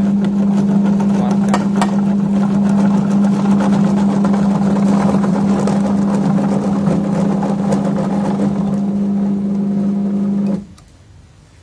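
Getra HR6 processor, modified as a durian flesh separator, running: its 950-watt electric motor gives a loud, steady hum while it spins durian pulp out through the screen. The sound stops suddenly near the end.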